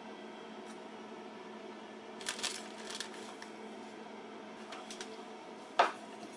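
Kitchenware handled while cooking: a short run of clinks and clatters a couple of seconds in, then one sharp knock near the end, over a steady low hum.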